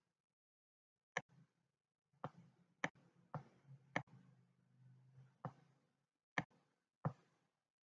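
Faint, irregular clicks of a pen stylus tapping on a tablet while writing, about eight of them, with a faint low hum under the middle few.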